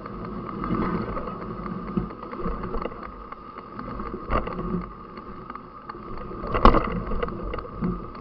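Mountain bike riding over a trail: a steady rush of wind and rolling noise with rattling clicks, knocks at about four seconds, and the loudest knock a little later.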